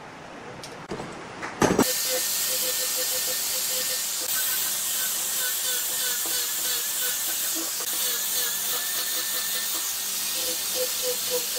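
A few soft clicks, then from about two seconds in an angle grinder with a sanding disc runs steadily against the edge of a carved wooden panel, a loud, even hiss.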